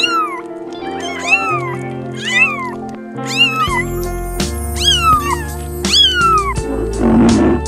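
Kittens meowing: about six high, thin mews spaced roughly a second apart, each rising sharply and then sliding down in pitch, over background music.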